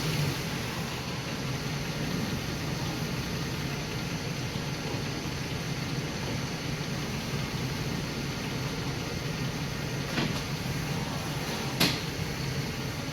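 Pickup truck running with a steady low hum, and two short sharp clicks near the end.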